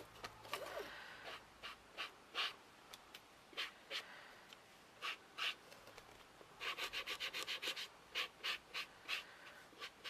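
Foam pad of a handled craft blending tool dabbing and rubbing colour onto a painted bird house and onto an ink pad: soft scratchy strokes, scattered at first, then a quick run of about seven strokes a second about two-thirds of the way in.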